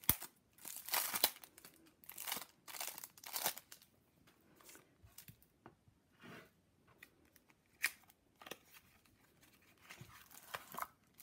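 Cellophane shrink-wrap crinkling and tearing as it is pulled off a tarot card box, in a run of short crackly bursts over the first few seconds, then sparser, with one sharp crackle about eight seconds in.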